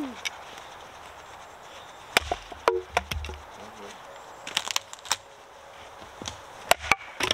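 Wood being chopped: about a dozen sharp, irregularly spaced knocks, some coming in quick pairs.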